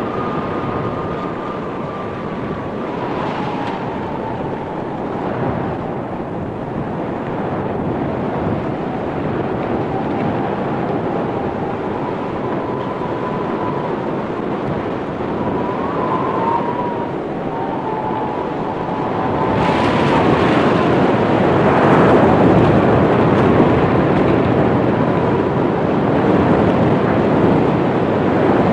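Blizzard wind howling: a steady rush of noise with a thin whistling tone that wavers up and down in pitch, growing louder and gustier about twenty seconds in.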